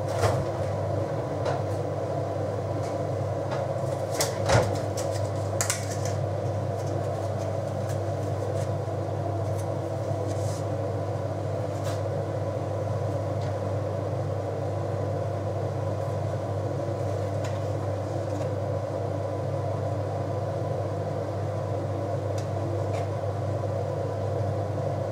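Steady low hum of a kitchen appliance, with a few knocks and clicks in the first six seconds as a fridge door is opened and shut.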